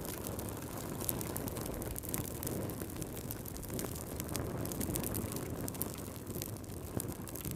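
Fire burning in a fireplace, crackling with frequent small, irregular snaps and pops over a steady low rumble.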